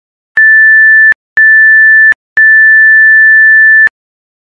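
Countdown timer's end-of-timer alert: three electronic beeps at one steady pitch, the first two short and the third about twice as long, signalling that the countdown has finished.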